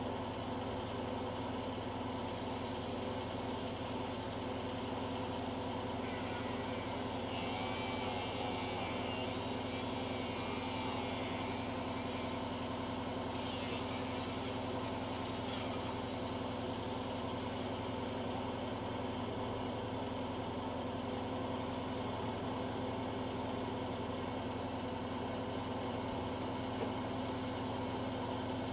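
Angle grinder cutting the bolts off corrugated asbestos cement roof sheets, heard from a distance in two stretches of harsh hissing: a long one about a quarter of the way in and a shorter one around the middle. Underneath, a steady low engine hum runs throughout.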